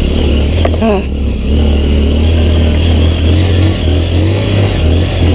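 Honda CRF150L's air-cooled single-cylinder four-stroke engine running steadily under load as the dirt bike is ridden along a rutted dirt trail.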